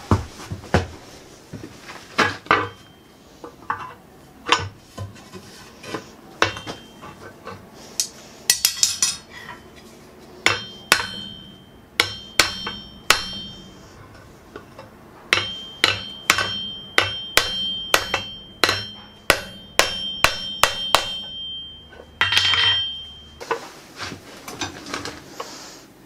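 Hand hammer striking a red-hot steel pin on the anvil, peening it over to fix a forged steel door knocker to its backplate. The blows are sharp metal strikes, scattered at first and then in quick runs, with a high ringing from the metal. Near the end there is a short hiss as the hot metal is cooled with water.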